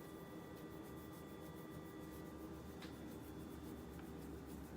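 Low room tone: a steady faint hum with faint regular ticking and a light click about three seconds in.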